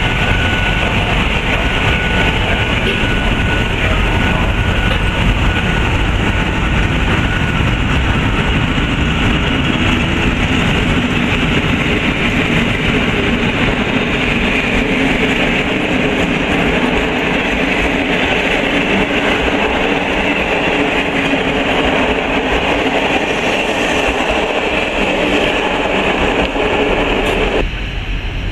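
MÁV class V43 (431 series) electric locomotive and its passenger coaches rolling past close by as a fast train pulls out, a steady loud rumble and rush of wheels on rail. A thin high whine sits over it in the first few seconds, and the sound drops abruptly near the end.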